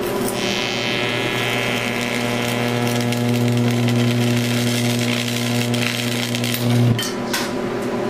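Electric arc between two carbon gouging rods in a ceramic crucible, fed by an AC stick welder, burning with a steady low buzz and a hissing crackle that is strongest in the first couple of seconds as it melts a synthetic ruby charge. The buzz cuts off suddenly about seven seconds in, with a couple of sharp cracks.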